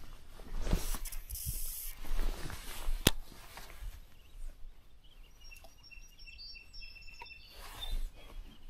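A cast with a baitcasting rod and reel: a whoosh as the line pays out over the first few seconds, then a single sharp click about three seconds in, followed by quieter handling of the reel.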